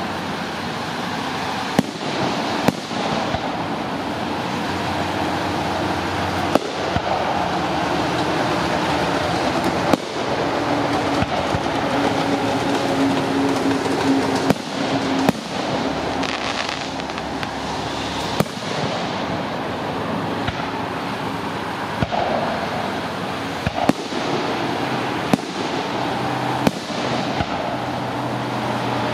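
Aerial fireworks display: shells launching and bursting, a dozen or more sharp bangs spread through, over steady background noise.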